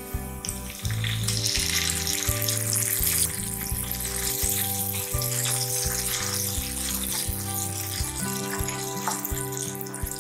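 Chopped tomatoes hitting hot oil in a pan of frying onions: a loud sizzle starts about half a second in and keeps going while the mixture is stirred. Background music plays throughout.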